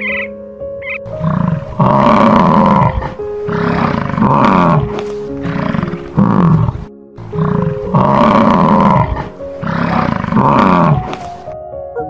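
American bison bellowing: about five deep, drawn-out roars, each about a second long, coming one after another.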